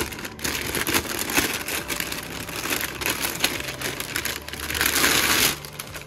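Thin plastic packaging bag crinkling as it is handled and pulled out of the box, loudest about five seconds in.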